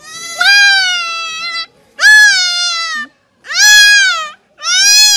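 Young goat kid bleating in distress while it is held down and castrated: four loud, high-pitched cries, each about a second long, rising and then falling in pitch.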